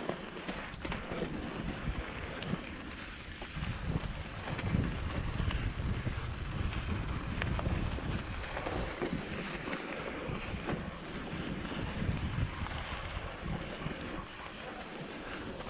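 Wind rumbling on the camera microphone as a mountain bike is ridden along a snow-covered trail, with tyre noise on the snow and scattered clicks and rattles from the bike. The rumble swells for several seconds in the middle.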